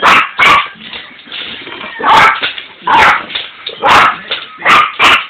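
Chihuahua–Jack Russell terrier mix puppy barking: about seven short, sharp yappy barks at irregular spacing, two close together at the start and a quick pair near the end.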